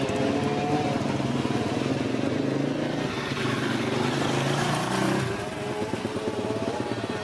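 Motorcycle engine running steadily, its sound dropping away about five seconds in.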